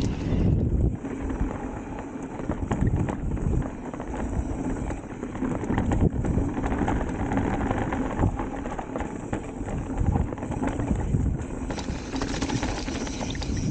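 Electric mountain bike riding down a dirt downhill trail: tyres rumbling over the ground, with frequent knocks and rattles from the bike over bumps and wind buffeting the microphone.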